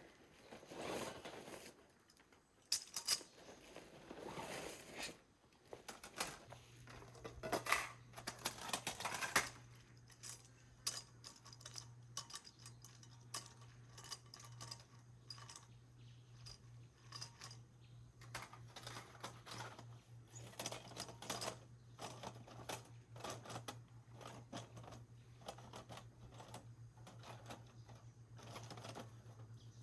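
Small clicks, taps and rustles of camping gear being handled, busier in the first ten seconds. A low steady hum comes in about six seconds in and continues under them.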